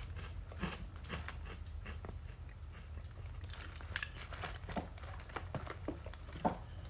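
Close, faint crunching and chewing of a puffy Pringles Mingles snack piece: scattered small crackles, a few sharper ones after the middle.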